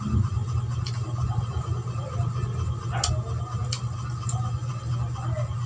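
A person chewing soft food, with a few faint smacking clicks, over a steady low hum.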